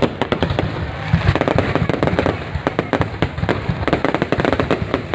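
Fireworks display going off in a rapid, continuous barrage of sharp bangs and crackles, with deeper booms mixed in.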